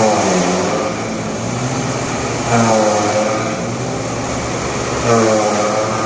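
Fully automatic straw kneading machine shredding dry rice straw under load: a steady mechanical running with a pitched hum that dips in pitch and swells in loudness three times, about every two and a half seconds.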